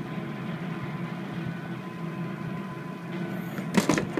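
A steady mechanical hum, then near the end a short burst of knocks and clatter as the winged toy pig crashes into a small wall of plastic toy bricks and knocks it down.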